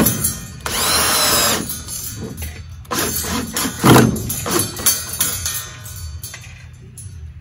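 Cordless drill driving screws into a wooden post to fasten a metal sign bracket: one steady run of about a second near the start, then a few shorter bursts a couple of seconds later.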